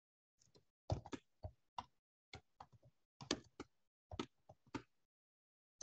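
Typing on a computer keyboard: faint, uneven key clicks, some single and some in quick runs.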